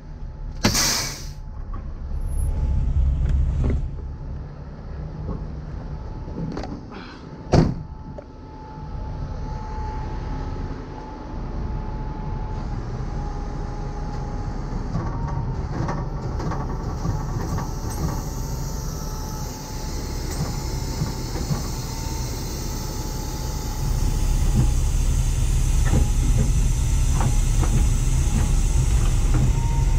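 Tow truck's diesel engine running at idle, with a short noisy burst about a second in and a sharp loud knock near eight seconds. A thin steady whine runs through the middle, and the engine grows louder near the end as the hydraulic wheel lift is worked.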